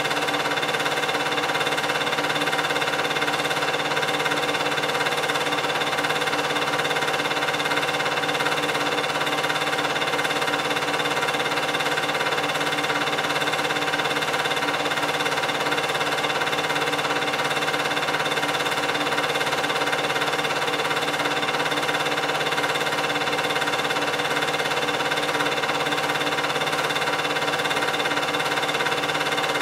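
8mm film projector running: a steady mechanical hum with several constant tones that never change. The film itself is silent, so this is the projector heard during the transfer.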